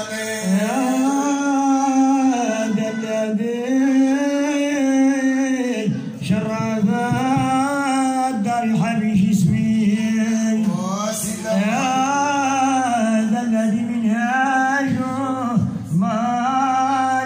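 Moroccan Sufi madih (praise song for the Prophet) sung a cappella by men into a microphone, one solo male voice at a time, in long, ornamented phrases with held notes. The singing is amplified through a loudspeaker.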